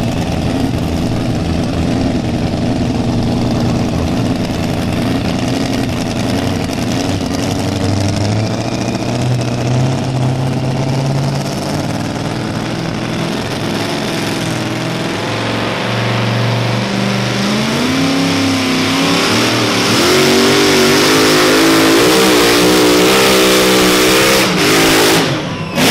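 Supercharged V8 of a super modified two-wheel-drive pulling truck running and blipping at the line, then revving up and running at full throttle under load as it pulls the sled. Its pitch wavers and it is loudest in the last few seconds, then the throttle is cut suddenly just before the end.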